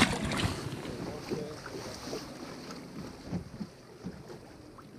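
A released largemouth bass splashing into the lake beside the boat, a short sharp splash at the very start, followed by steady wind noise on the microphone.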